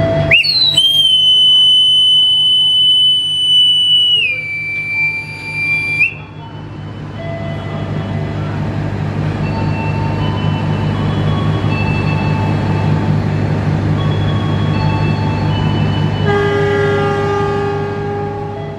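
A station master's whistle blown in one long blast, starting about half a second in and lasting about five seconds, its pitch dropping a step partway: Semboyan 40, the signal that the line is clear for the train to depart. A diesel locomotive runs steadily throughout, and near the end its horn sounds a long blast, Semboyan 35, the driver's answer that the train is ready to leave.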